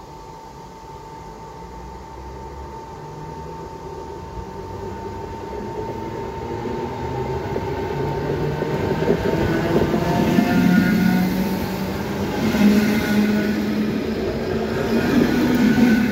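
ČD class 460 electric multiple unit pulling away from the halt and passing close by, growing steadily louder. Its motor hum rises slowly in pitch as it gathers speed over a steady higher whine.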